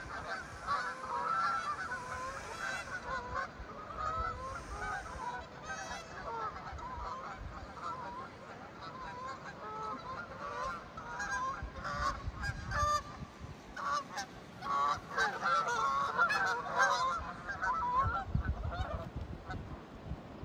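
A flock of geese honking as it flies over the river, many overlapping calls without a break, thickest about fifteen to seventeen seconds in.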